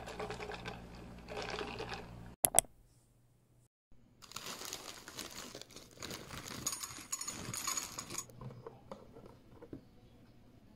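A short rustle and two sharp clicks, then, from about four seconds in, a plastic bag crinkling as small cookie-shaped cereal pieces pour from it into a ceramic bowl, followed by a few light taps as the pouring stops.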